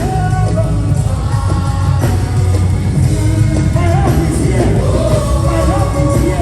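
Live gospel worship music: a band playing under a steady, heavy bass, with singers' voices sliding through ornamented runs from about four seconds in.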